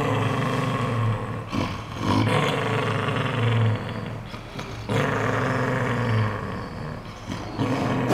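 Cocker spaniel growling in long, low, continuous rumbles, one after another with only short breaks for breath. This is resource guarding: she is warning someone away from her toy ball.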